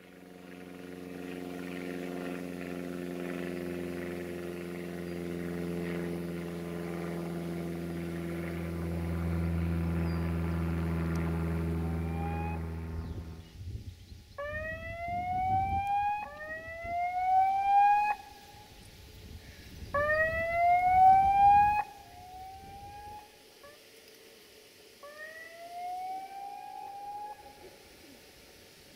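A diesel train engine running with a steady hum that grows louder, then cuts off abruptly about 13 seconds in. After it comes a repeating rising tone, each sweep about one and a half to two seconds long, fading in level toward the end.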